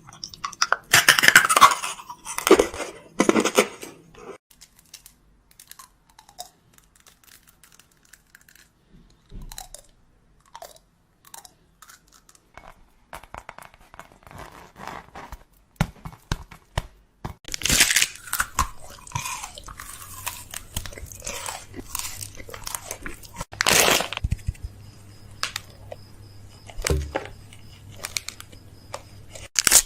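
Close, irregular crunching and crackling of food, with scattered sharp clicks and a few louder bursts near the start and about two-thirds of the way in.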